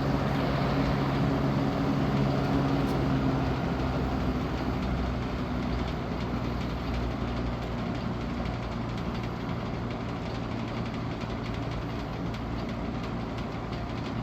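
Vintage 1970s Galaxy Turbo Stream 20-inch box fan running: a steady motor hum under the rush of air, with a light rattle from the grille cage. The hum eases slightly after a few seconds.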